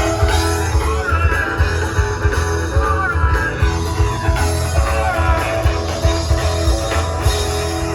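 Live rock band amplified through an RCF line-array PA with subwoofers: electric guitar over a heavy, continuous bass beat.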